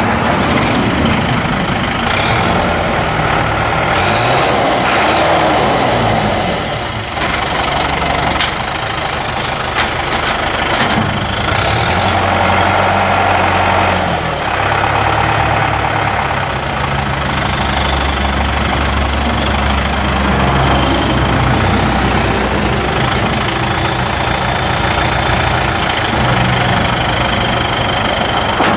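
2008 John Deere 5603's turbocharged four-cylinder diesel running, revved up and back down twice with a high whistle that rises and falls with the revs, then running steadily with a faint constant high tone.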